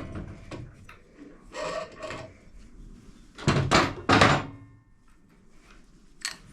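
Metal motorcycle parts and tools being handled: a scrape, then two louder clunks around the middle and a short sharp click near the end.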